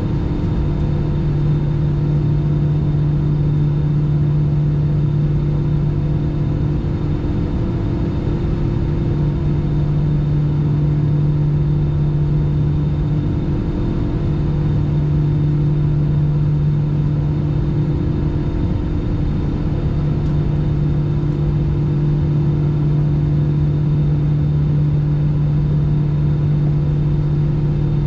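Airbus A319's jet engines idling, heard inside the passenger cabin as a steady low hum with a second hum above it, fading briefly a few times.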